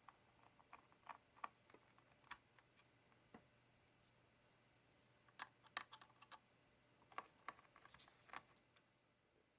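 Faint, irregular light clicks and taps on an ASUS X200MA laptop, coming in loose clusters, from keys or small plastic parts being handled.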